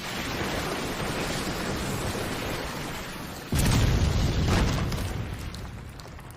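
Anime battle sound effects: a steady rushing noise, then a sudden heavy boom a little past halfway that dies away over a couple of seconds.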